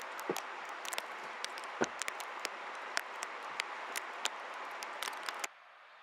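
Steady hiss of blizzard wind outdoors, dotted with many sharp irregular ticks. It cuts off suddenly about five and a half seconds in, giving way to quiet room tone.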